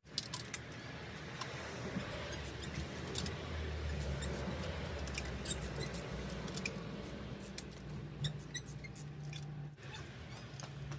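Scattered light metallic clicks and clinks of hand tools working on the engine as its spark plugs are taken out.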